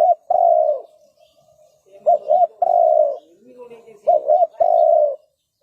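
Spotted dove cooing: a phrase of two short notes and a longer, slightly falling coo, repeated about every two seconds, with fainter lower cooing between the phrases.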